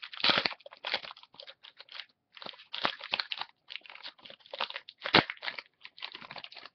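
Trading card pack wrapper being crinkled and torn open, with the cards inside being handled: a run of irregular crackly rustles.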